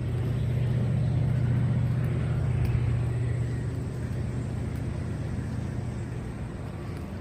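Low steady mechanical rumble with a deep hum, loudest in the first few seconds and fading toward the end.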